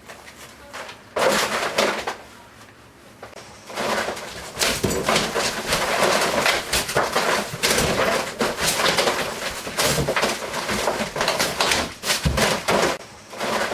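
Hand demolition of bathroom wall material: rough, irregular scraping and tearing. A few loud strokes come just over a second in, and from about four seconds in the strokes come dense and continuous.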